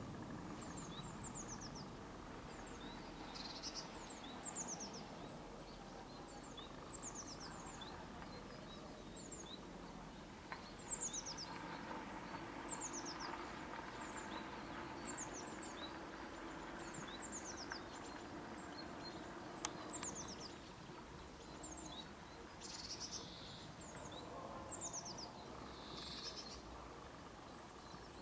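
Small songbirds calling: short, thin, high notes, each falling in pitch, in runs of two to four, repeated every second or two over a steady low background rumble.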